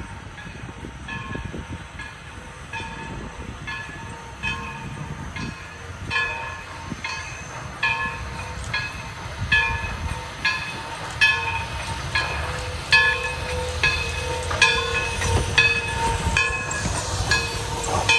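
Steam locomotive bell, East Broad Top #16, a 2-8-2 Mikado, ringing steadily a little more than once a second over the locomotive's low rumble. The strokes grow louder toward the end as the engine draws nearer.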